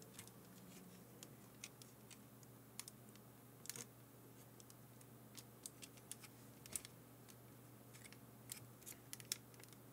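Faint, irregular small clicks of fingers handling the plastic cassette mechanism and case of an opened Aiwa HS-TX610 portable cassette player, over a low steady hum.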